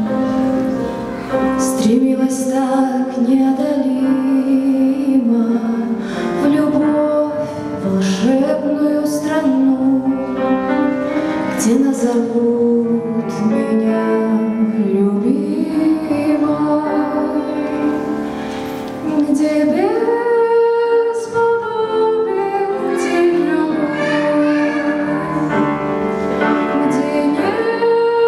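A woman singing a Russian romance in a classical style with long held notes, accompanied on a Seiler grand piano.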